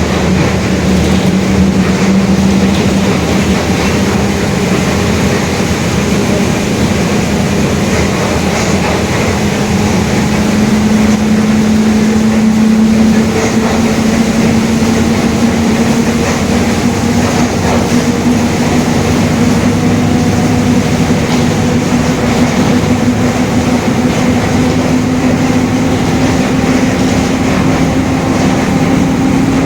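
Mercedes-Benz OF-1721 bus on the move, its differential droning: a steady whine that climbs slowly in pitch as road speed builds, over the rumble of the drivetrain and road.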